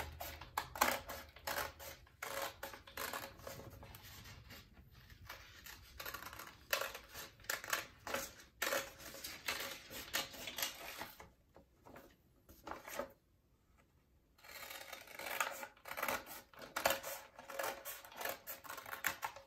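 Scissors cutting through two stacked sheets of paper, a brown paper bag on white drawing paper, in a run of short snips. The cutting stops for about three seconds past the middle, then resumes.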